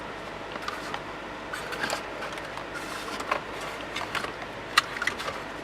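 Scattered short clicks, knocks and scrapes of parts and wiring being handled, over a steady low hum; the sharpest click comes a little before the end.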